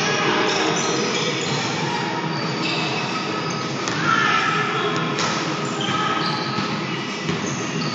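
Basketball game sounds in a large echoing gym: a ball bouncing on the hardwood floor, sneakers squeaking in short high chirps, and indistinct voices of players.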